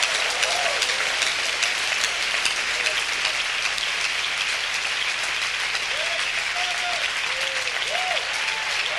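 Congregation applauding steadily, with a few voices calling out near the end.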